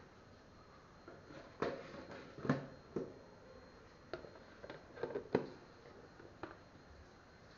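Kitchen cookware and utensils being handled: about ten short knocks and clinks at irregular intervals, loudest around two and a half and five and a half seconds in.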